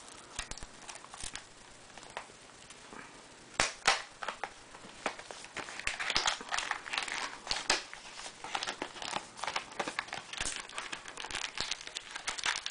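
Apple iPad case box being opened by hand: crinkling and rustling of packaging with many small sharp clicks. Sparse at first, busier and louder through the second half.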